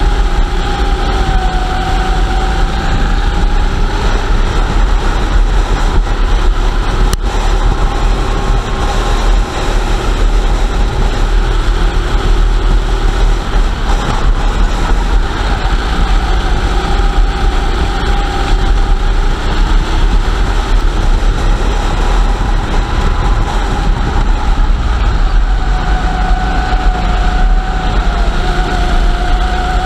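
Kart engines running continuously at racing revs, heard from an onboard camera, with several engine notes together as the pack runs nose to tail. The pitch dips and rises a little as the throttle changes, under a steady deep rumble.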